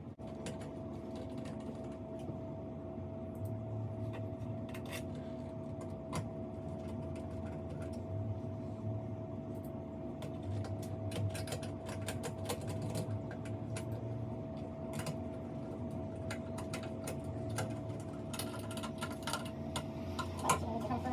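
A steady mechanical hum with one held tone, with scattered clicks and knocks throughout; the tone stops near the end.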